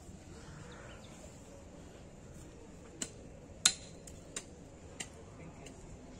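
Four short, sharp clicks or snaps over a faint steady outdoor background, starting about three seconds in; the second is much the loudest.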